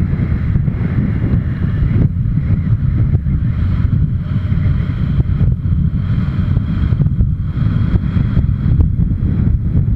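Steady, loud wind rush and low rumble on the microphone of a camera mounted on a motorcycle riding at road speed, with the bike's running noise underneath.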